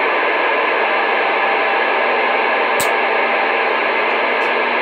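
Steady static hiss from a two-way radio receiver with no one transmitting, its signal meter near zero, with a faint hum under it. A single sharp click comes about three seconds in.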